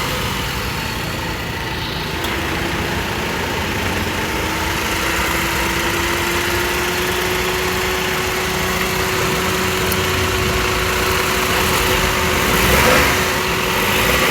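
Maruti Suzuki Wagon R petrol engine idling steadily just after starting, running on newly fitted alternator and AC compressor drive belts. A thin steady whine runs over the idle, rising a little in pitch over the first few seconds, and the sound swells briefly near the end.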